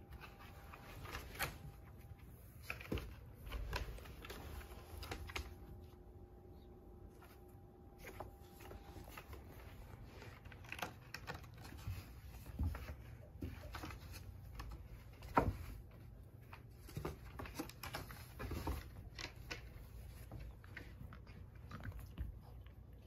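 Two cats scuffling on carpet and a corrugated cardboard scratcher: scattered claw scratches, rasps and soft thumps of paws and bodies, with one sharper knock about two-thirds of the way through.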